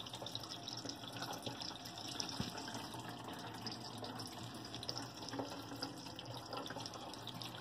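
Faint, steady water running from the tap into a kitchen sink and down its drain, as a leak test of newly fitted basket strainers and drain pipes.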